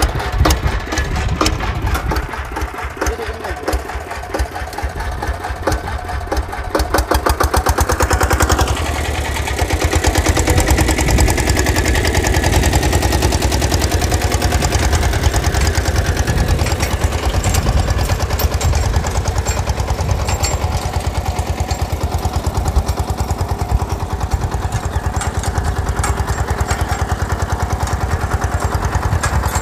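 Sanedo mini tractor's single-cylinder engine running with a rapid, even firing beat. It gets louder from about eight seconds in as the tractor works along the crop rows pulling a cultivator.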